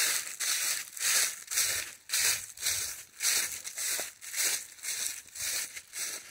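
A hiker's footsteps crunching at a steady walking pace, about two steps a second.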